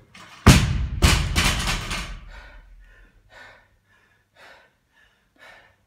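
Loaded barbell with bumper plates dropped from the shoulders onto rubber gym flooring after a power clean. There is a loud impact about half a second in, a second bounce half a second later, then a rattle that dies away over a second or so.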